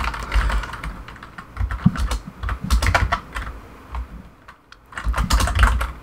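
Typing on a computer keyboard: quick clusters of key clicks with a short lull about four seconds in, then another burst of keystrokes near the end.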